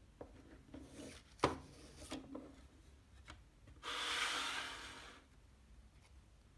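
Plastic CD jewel case being handled: a run of clicks and taps, the loudest a sharp snap about a second and a half in, then about a second of rubbing and sliding as the case and paper booklet are handled.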